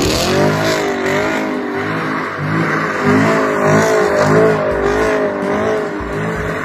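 Car engine revving: its pitch climbs at the start, then holds with a wavering rise and fall.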